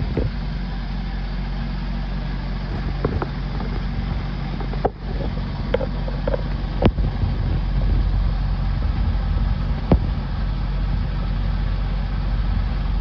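Boat's engine running steadily, being test-run after seagrass was cleared from its cooling-water intake, with a few sharp knocks over it.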